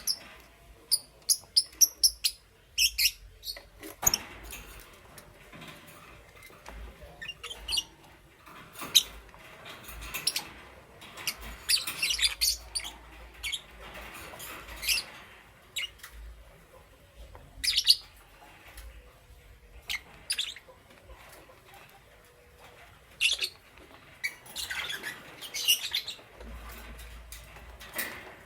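Lovebirds chirping: short, sharp, high-pitched chirps, often in quick runs of several, with pauses between the runs and softer chattering in between.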